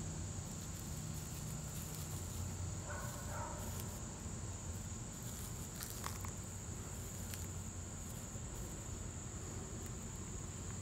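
Steady high-pitched insect drone, with a few faint crackles and rustles from dry wood shavings being pressed together in the hands.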